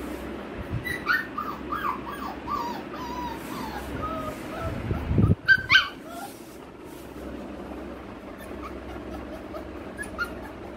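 Golden retriever puppy whimpering in a run of short, high, falling cries, then giving two louder sharp yelps about five seconds in, over a low thump.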